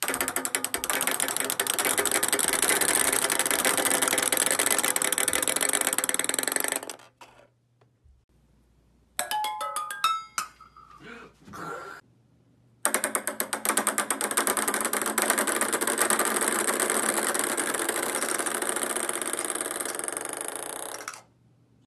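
A plastic ping pong ball bouncing very fast between two upright boards set in a V, a dense rattle of clicks that runs for about seven seconds and cuts off. In the middle come a few separate bounces off metal pots and pans, each with a short metallic ring, and then a second long run of rapid clicks between the boards that stops about a second before the end.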